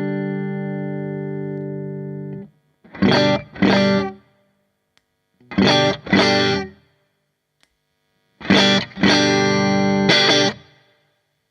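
Stratocaster electric guitar played through an AmS Hurricane 40 valve amp head (four 6V6 power tubes) into a 1x12 speaker cabinet. A strummed chord rings out and is muted about two and a half seconds in, followed by pairs of short chord stabs, each cut off sharply, and a final group of three stabs near the end.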